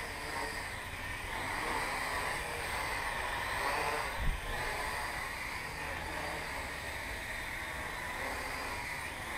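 Blade 180QX mini quadcopter's motors and propellers buzzing steadily while it hovers, the pitch wavering slightly with throttle. There is a single short thump about four seconds in.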